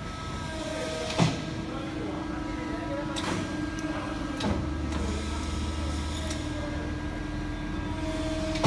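Press brake running: a steady machine hum, a deeper hum joining about halfway, and several sharp clicks, the loudest about a second in.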